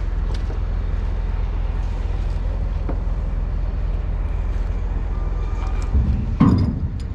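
Heavy diesel engine, most likely the crane's, running steadily with a low rumble. A loud knock sounds about six and a half seconds in.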